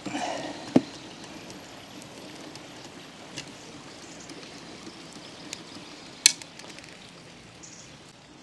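Hex screwdriver and hands working on a robotic mower's plastic bumper while its fixing screws are driven in. A short rustle opens, then a few sharp clicks and taps follow; the loudest come about a second in and about six seconds in. A faint steady hiss runs beneath.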